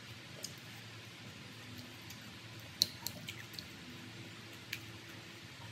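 Chopsticks clicking against a bowl while lifting stir-fried noodles: a few sharp ticks, most of them bunched about three seconds in, over a faint steady room hum.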